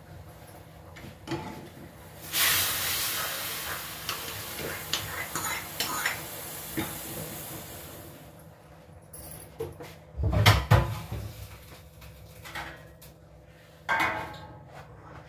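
Kitchen cooking sounds: a steady hiss that starts suddenly and fades over about five seconds, then the clatter and knocks of pots and utensils, the loudest a heavy knock a little after the middle.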